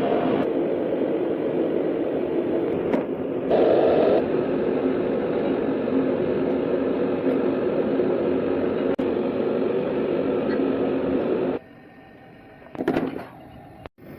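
A power tool running steadily with a whirring hum during a plastic bumper repair. It cuts off abruptly near the end, leaving a few brief knocks.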